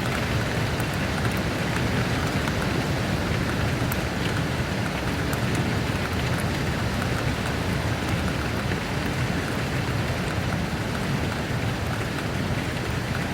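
Steady rain falling, an even hiss with scattered drips and patters.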